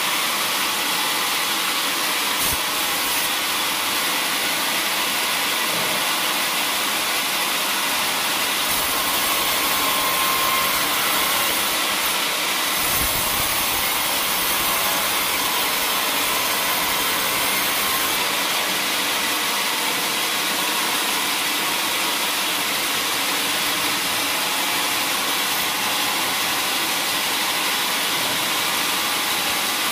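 A vertical band sawmill running as its blade cuts lengthwise through a teak log. The noise is steady and even, mostly high-pitched, and holds the same level throughout.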